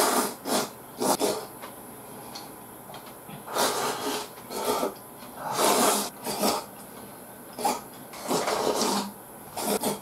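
Close-up mouth sounds of someone eating from a bowl held to the lips: slurping and sucking in food with chopsticks. It comes as a string of short noisy slurps, with longer ones around the middle.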